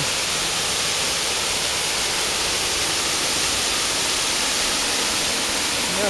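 Waterfall pouring steadily over a rock face into a pool: a constant, even rush of falling water.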